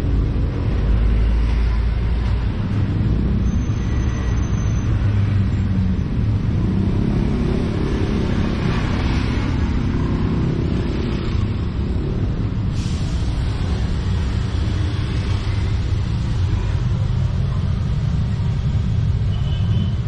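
Steady low noise of road traffic, cars and motorbikes running past, strongest in the first second.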